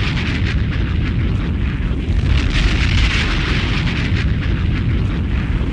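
Explosion-style radio sound effect: a loud, continuous rumbling roar with hiss that swells about halfway through, with no beat or voice over it.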